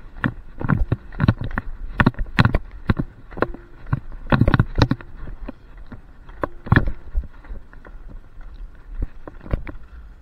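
Wheels rolling fast over rough asphalt with a steady low rumble, broken by frequent sharp, irregular clacks and knocks, about two or three a second.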